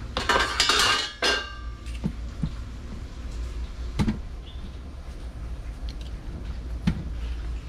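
Metal parts being handled: a ringing metallic clatter in the first second and a half, then a few soft knocks, over a steady low hum.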